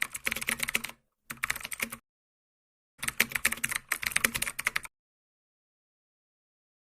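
Rapid keyboard-typing clicks in three bursts, the last and longest about three seconds in, with dead silence between them and after.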